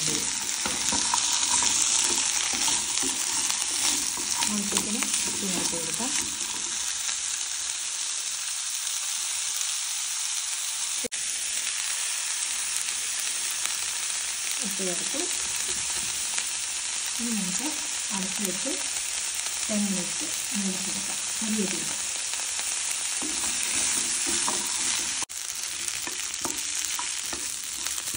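Chopped vegetables sizzling steadily in olive oil in a nonstick frying pan. A spatula scrapes and turns them now and then.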